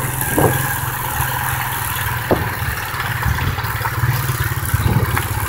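ATV (four-wheeler) engine running steadily at low speed while riding, with a few brief knocks.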